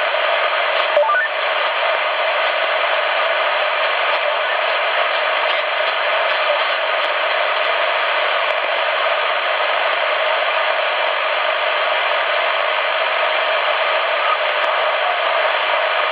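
Steady static hiss from a CRT SS 9900 CB radio's speaker, receiving 27.555 MHz in upper sideband (SSB) with no voice coming through. The sound is the band's background noise, with a few faint clicks about a second in.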